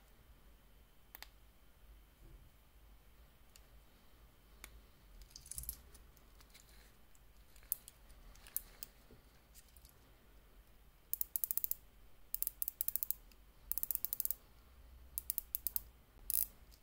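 Rotating bezel of a Pagani Design automatic dive watch being turned by hand: a few scattered clicks, then several quick runs of fine ratcheting clicks in the second half.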